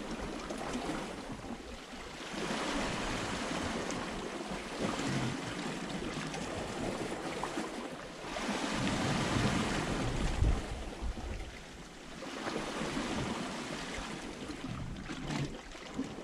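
Sea waves washing against a rocky shore, a steady hiss that swells and ebbs in several surges a few seconds apart.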